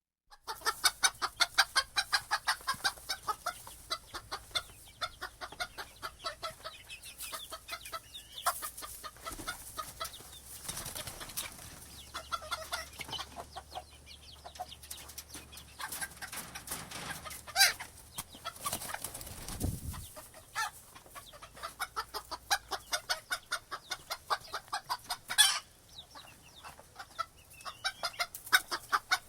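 Chickens clucking in quick, continuous short calls, several a second, broken by a few sharp knocks.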